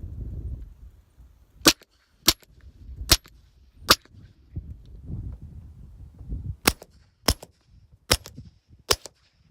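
Suppressed 9mm Glock 43 pistol firing through a Rugged Obsidian 9 suppressor in its long configuration: eight sharp shots in two strings of four, each string about two seconds long with roughly half a second to a second between shots.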